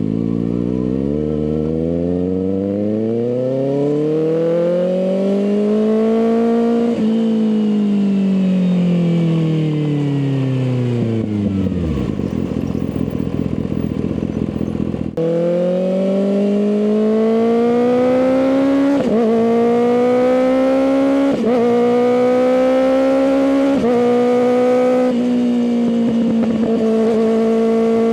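Kawasaki ZX6R inline-four running through an M4 exhaust. The revs climb steadily for about seven seconds, then fall away smoothly as the bike rolls off. After a cut, it accelerates again through four quick upshifts, the pitch dropping at each shift and climbing again, and settles into a steady cruise near the end.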